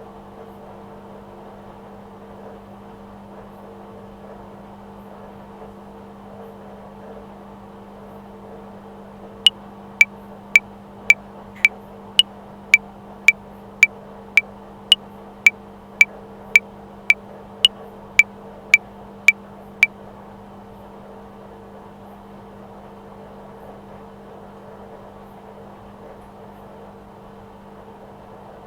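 Washing machine running with a steady hum. About a third of the way in, a metronome clicks twenty times at 110 beats per minute, four bars of 5/4, then stops while the hum carries on.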